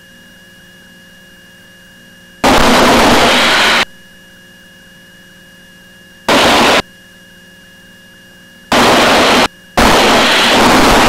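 Aircraft intercom/radio audio in a Beech T-34A Mentor: between stretches of faint steady electrical hum, the microphone keys open four times without speech. Each time, a loud rush of engine and wind noise comes in and then cuts off abruptly.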